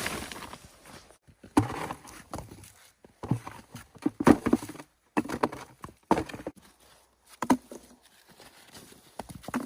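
Scattered knocks and clatters, about eight spread irregularly over several seconds with short quiet gaps between them: the sound of wood being broken and handled while preparing a fire.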